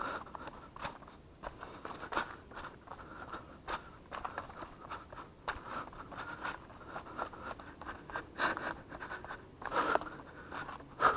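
A runner's quick footfalls going downhill on a concrete and dirt trail, about two to three steps a second, with hard breathing and rustling between them; the loudest steps come near the end.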